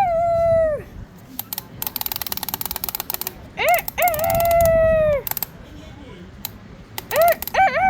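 Crowing calls in a cock-a-doodle-doo pattern, three times: each is a couple of short rising notes and then a long held note that falls off at the end. Between the first two calls comes a fast run of ratcheting clicks, like a wind-up key being turned.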